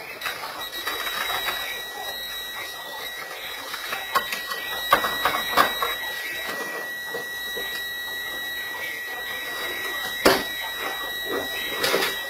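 Electronic alarm sounding a continuous high-pitched tone, with several sharp knocks and bangs, the loudest about ten seconds in.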